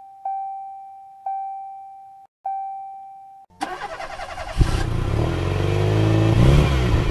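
Three ringing electronic ding tones of one pitch, each fading out, about a second apart. Then, a little past halfway, a truck engine sound effect starts up with a knock and revs with rising pitch.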